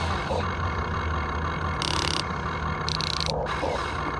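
Huina 1592 1:14 scale RC excavator running: a steady engine-like hum, with short bursts of high electric-motor and gear whirring about two seconds and three seconds in.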